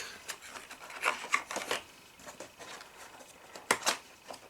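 Cardboard packaging being handled: rubbing and rustling with scattered light clicks, and two sharper clicks near the end.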